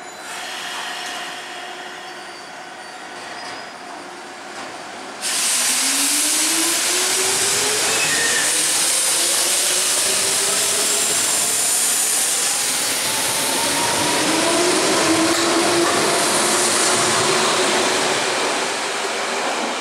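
Hanshin 5001-series 'Jet Car' electric train pulling away and accelerating hard, its motor whine climbing steadily in pitch as it runs past. A sudden loud rush of running noise starts about five seconds in and carries on to the end.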